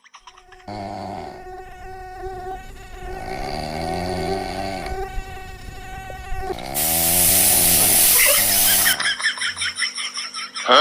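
A mosquito's buzzing whine, wavering in pitch, mixed with snoring. A loud hiss cuts in a little past the middle and lasts about two seconds.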